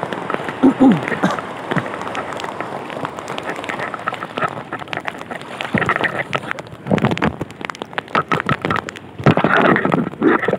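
Seawater sloshing and splashing around someone wading about waist-deep, an irregular run of splashes with heavier bursts about seven seconds in and again near the end.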